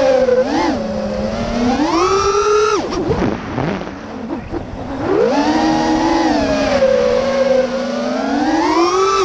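QAV210 racing quadcopter's DYS 2205 brushless motors spinning HQ 5x4x3 three-blade props, a whine rising and falling in pitch with the throttle, heard from the quad's onboard camera. It climbs to a high pitch about two seconds in, cuts out sharply near three seconds, and comes back in about two seconds later, rising again near the end.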